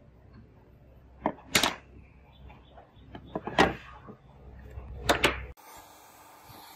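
Sharp clicks and scrapes of a small metal screwdriver worked against a burnt Samsung Galaxy Note 9's metal midframe, coming in four short clusters. Near the end the sound cuts off suddenly to a steady hiss.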